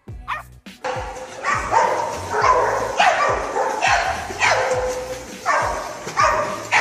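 A dog barking and yelping repeatedly, about two barks a second, over steady splashing water.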